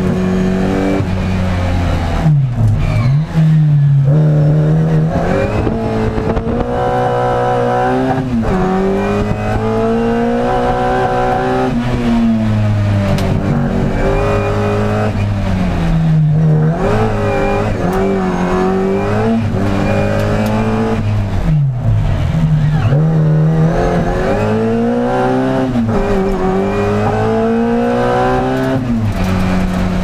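Classic Mini's 1380 cc A-series four-cylinder engine at full throttle, heard from inside the cabin. The note climbs steadily through the revs, then drops sharply at each gear change or lift, several times over.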